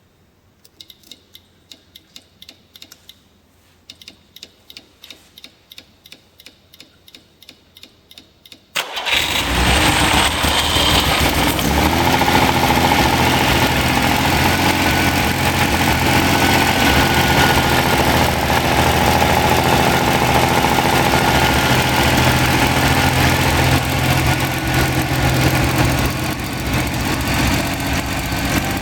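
Ferrari Dino 246 GT's freshly rebuilt 2.4-litre V6 being started on a test stand. A run of quick, light ticks with a short pause in the middle comes first, then the engine catches about nine seconds in and runs steadily.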